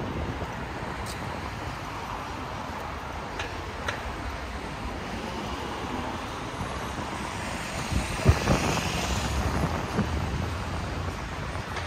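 City street ambience: steady traffic noise, with a few short sharp knocks. A louder rush with some sharper knocks comes about eight seconds in and fades over the next two seconds.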